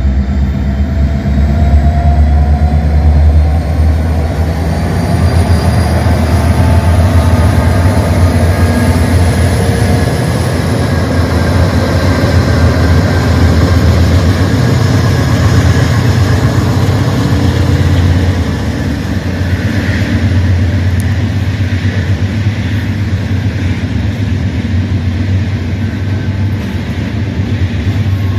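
Long CN freight train rolling past: a loud, steady rumble of wheels on rail, with thin high tones that slowly rise in pitch over the first ten seconds or so and a few faint knocks about twenty seconds in.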